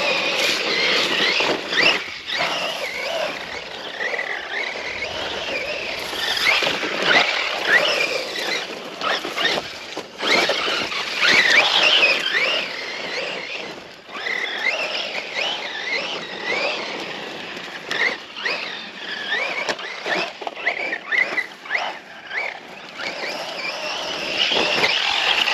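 Electric Losi RC truck driving hard: its brushless motor whines up and down in pitch over and over as it accelerates and lets off, with tyre scrabble and knocks from the chassis.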